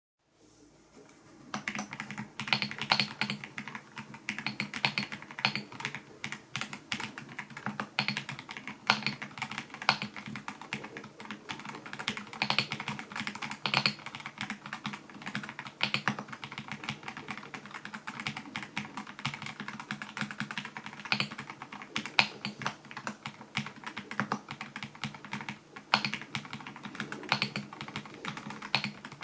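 Typing test on a darkFlash DF98 gasket-mount mechanical keyboard with pre-lubed darkFlash yellow linear switches and PBT keycaps: a fast, continuous run of keystrokes that starts a second or so in, with a low, deep thock rather than clicks.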